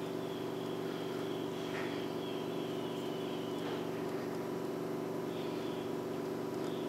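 Domestic cat purring steadily and close up while being stroked on the head and neck.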